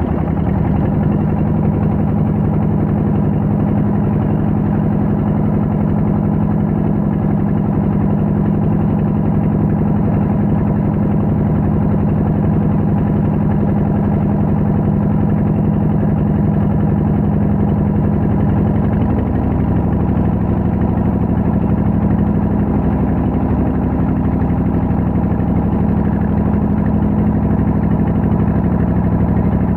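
Small fishing boat's engine running steadily under way, a loud low drone whose pitch shifts slightly about two-thirds of the way through.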